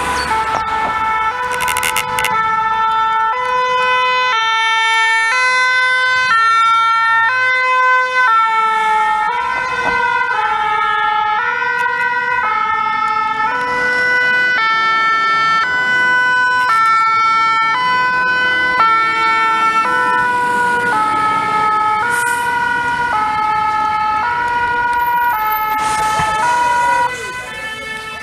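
French two-tone fire-brigade sirens on several vehicles passing one after another, each switching between two notes about every two-thirds of a second, with the patterns overlapping at times. The sirens drop away suddenly shortly before the end.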